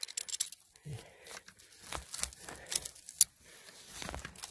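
Irregular crackling and rustling of dry conifer needles, twigs and moss on the forest floor, disturbed close to the microphone.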